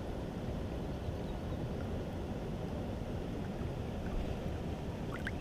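Wind on the camera microphone: a steady low rumble with no distinct events.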